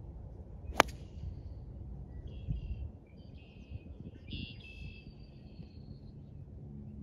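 The solid persimmon head of a 1957 MacGregor driver strikes a golf ball once, a single sharp crack about a second in. Short high bird chirps follow over a low outdoor rumble.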